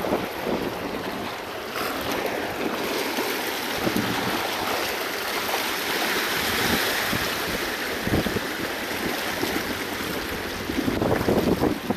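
Sea waves washing and breaking against sandstone rock ledges, with wind buffeting the microphone.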